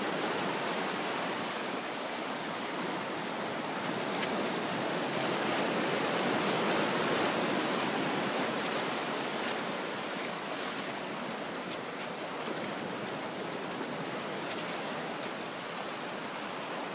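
Steady rush of sea surf washing over the rocky shore, swelling slightly and easing off a little in the second half.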